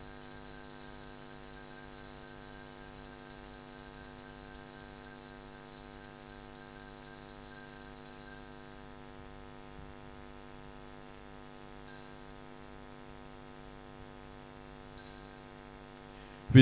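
Small altar bell rung at the elevation of the chalice after the consecration: one high ring that fades out over about nine seconds, then two brief rings a few seconds apart.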